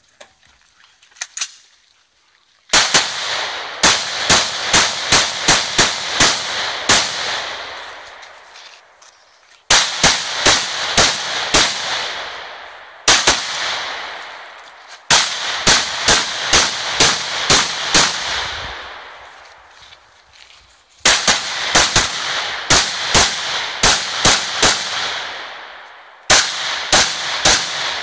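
Semi-automatic AR-style rifle fired in fast strings of shots, about five or six strings of several quick shots each, separated by short pauses. Each string is followed by a long echoing tail.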